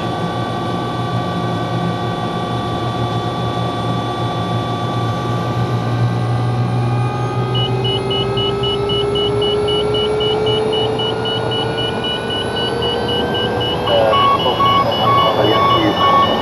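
Rolls-Royce 250-C20B turboshaft of an MD500E helicopter spooling up after start, heard from inside the cockpit: a steady turbine whine whose tones slowly rise in pitch, over a low hum. A fast electronic beeping comes in about halfway through, and a lower beep joins near the end.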